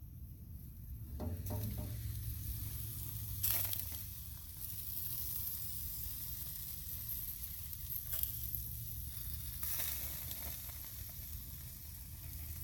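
Shish kebabs sizzling on a grill: a steady hiss that flares louder a few times.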